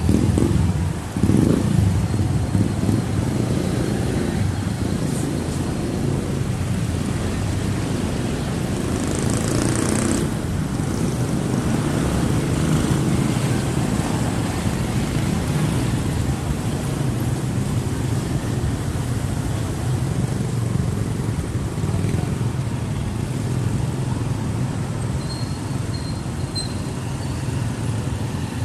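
Steady rumble of wind and road noise while riding an e-bike, with a brief louder hiss about ten seconds in.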